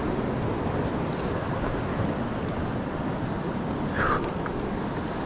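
River rapids rushing, a steady noise of moving water, with a brief sharper sound about four seconds in.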